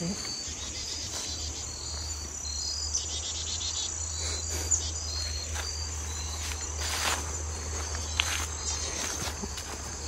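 Insects chirping and trilling in a steady high chorus, with footsteps and brush rustling as someone walks along a wooded trail, over a low rumble.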